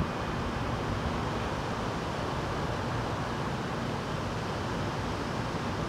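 Steady hiss of wind through trees during a night thunderstorm, with no distinct thunderclap.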